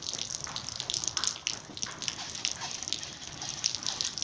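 Rain falling on a wet brick-paved rooftop: a steady patter with many separate drops and splashes ticking irregularly.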